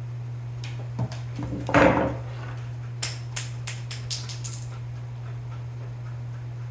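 Small tools and gun parts handled on a workbench: a knock about a second in, a louder rustling clatter just before two seconds, then a quick run of light clicks, over a steady low hum.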